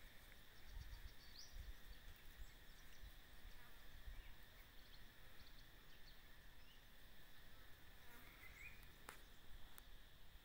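Near silence: quiet rural outdoor ambience with a faint steady insect drone and a few brief, faint bird chirps. There is a single sharp click about nine seconds in.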